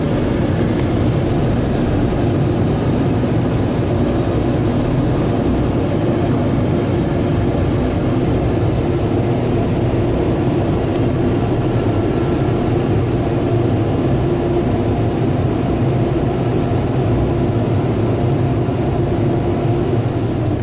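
Ryko Softgloss Maxx car wash air dryers blowing, a loud steady rush of air with a low hum, heard from inside the vehicle going through the bay.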